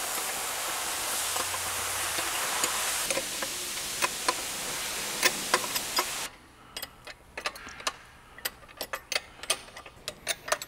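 A steady hiss with a few light clicks cuts off abruptly about six seconds in. Then comes an irregular run of sharp metallic clicks: a hand ratchet running in the propeller hub bolts.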